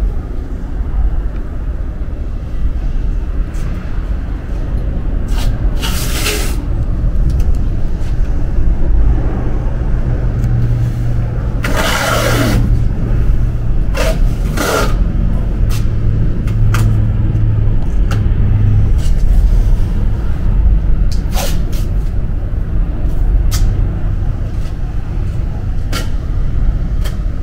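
A drill cutting out spot welds in a van's steel quarter panel, in several separate short cuts as the bit bites into the metal. The motor winds down in pitch after a couple of them. A steady low hum runs underneath.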